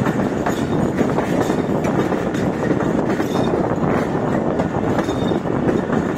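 Pakistan Railways express passenger train running at speed, heard from the open door of a moving coach: a steady rumble of wheels on the track with a scattered clatter of clicks.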